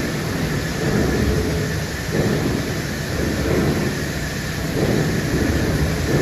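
Welding arc from a collaborative welding robot's torch, crackling steadily, over a low surging rumble.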